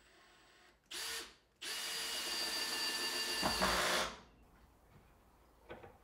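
Cordless drill driving screws into a plywood cabinet carcass: a short burst of the motor about a second in, then a longer steady run of two to three seconds that stops.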